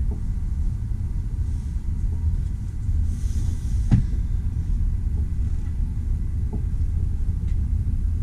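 Steady low rumble of a high-speed train running, heard from inside the passenger cabin. A single short knock comes about four seconds in.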